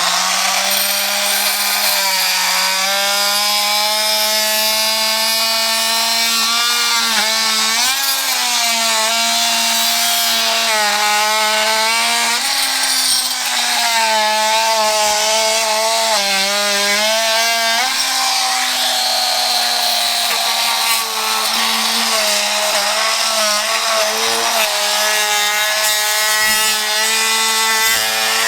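Milwaukee cordless power tool motor running steadily, its pitch dipping and wavering as the load changes, with a constant high hiss and some rattling.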